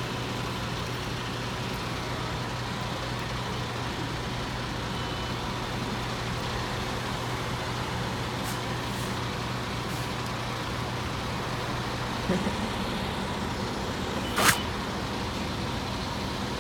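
Bus engine running with a steady hum, which steps up in pitch about twelve seconds in; a sharp click comes a couple of seconds later.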